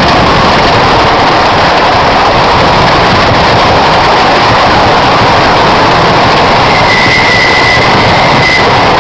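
Loud, steady rush and rumble of a wooden roller coaster train running along its track, with wind noise on the microphone. A high, steady squeal joins about seven seconds in and lasts under two seconds.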